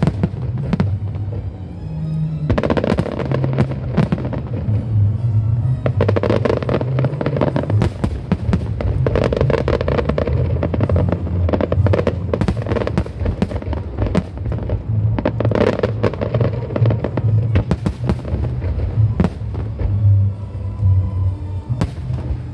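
Fireworks display with dense, rapid shell bursts and crackling, heaviest through the middle stretch, over loud music.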